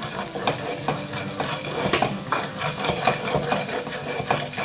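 Spatula scraping and knocking against a non-stick wok as sliced shallots and garlic fry in oil with curry powder: irregular sharp scrapes and clicks, several a second, over a steady sizzle.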